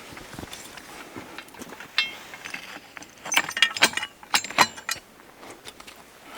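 Metal fence posts and hardware clinking and rattling: scattered sharp metallic knocks, some ringing briefly, with a quick run of them between about three and five seconds in.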